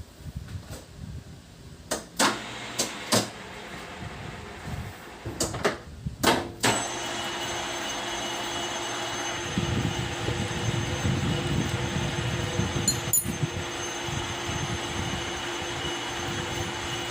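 Metal lathe: a series of sharp metallic clicks and knocks, then about seven seconds in the machine starts up and runs steadily with a constant hum and whine.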